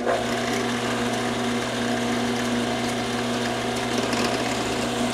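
Drill press running, its bit boring a hole into a small wooden block: a steady motor hum with the noise of the cut.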